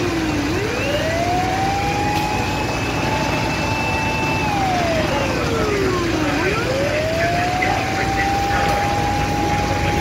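Fire engine siren wailing: a slow rise to a long held tone, a slow fall about halfway through, then a second rise that holds. A steady low engine rumble runs underneath.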